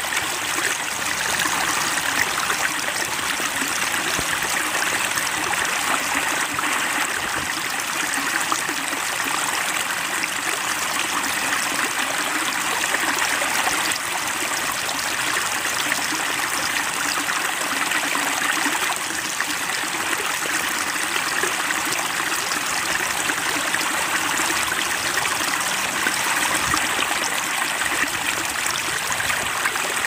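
Steady babbling, trickling stream water.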